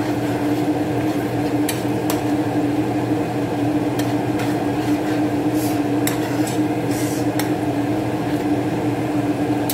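Metal spoon stirring sauce in a nonstick frying pan, with scattered scrapes and taps against the pan, over a steady hum.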